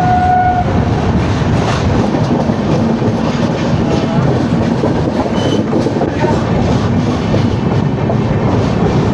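Express train's LHB passenger coach running at speed, heard from the open coach door: a steady rumble with wheel-on-rail clatter and rushing air. A short high tone sounds just at the start.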